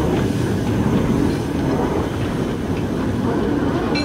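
Narrow-gauge steam locomotive hauling wagons past at slow speed: a steady, loud rumble of the train running over the rails, with a few light clicks near the end.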